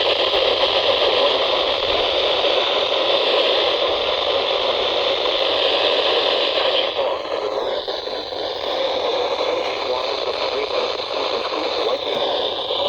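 NOAA weather radio receiver tuned to a weak station: a steady static hiss with a faint broadcast voice beneath it. The hiss changes character briefly about seven seconds in.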